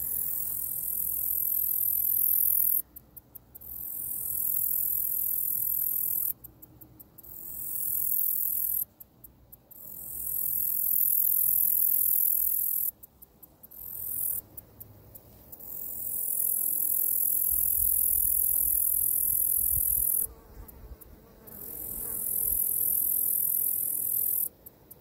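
Male gladiator meadow katydid (Orchelimum gladiator) stridulating. It makes a high, dry buzz that swells over two to four seconds and stops abruptly, then gives a short run of separate ticks. The pattern repeats about six times.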